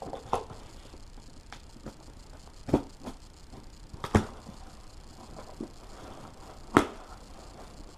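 Handling and unpacking new BMX pedals and grips: scattered light clicks and knocks, with sharper knocks a little under three seconds in, about four seconds in, and near seven seconds in.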